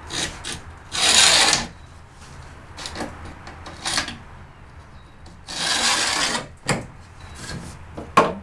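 Paint scraper scraping old glue off the tongue of a salvaged engineered wood floor plank: several short strokes and two longer scrapes, one about a second in and one around six seconds in.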